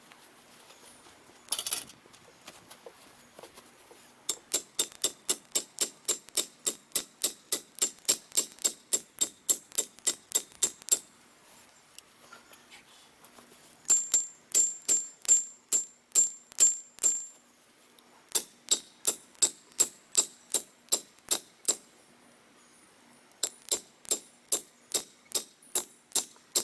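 Steel post driver pounding a metal T post into the ground in four runs of rapid, evenly spaced ringing metallic strikes, about three a second. The post is meeting rocks below ground, so it is hard going.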